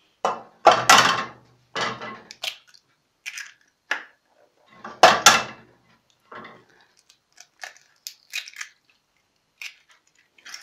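Eggs being cracked by hand: sharp knocks of shells struck against a bowl's edge and the crunch of shell breaking, in a run of irregular clicks, the two loudest about a second in and about five seconds in.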